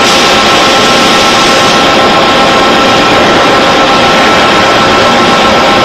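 Gray 550F CNC floor-type horizontal boring mill running steadily as its 5-inch spindle feeds out of the headstock. The sound is a loud, even machine noise carrying a constant whine of several held tones.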